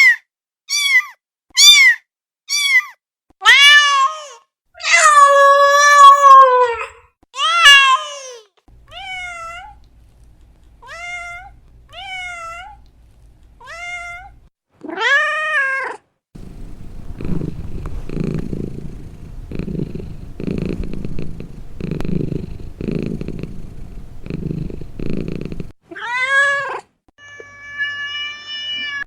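Domestic cat meowing over and over: loud meows first, then several fainter ones, then one loud meow. About nine seconds of rhythmic purring follows, and the meowing starts again near the end.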